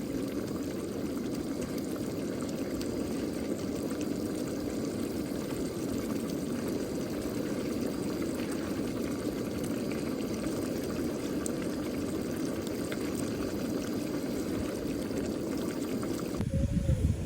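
Steady rushing noise like running or pouring water. It cuts off sharply near the end and gives way to a low rumble.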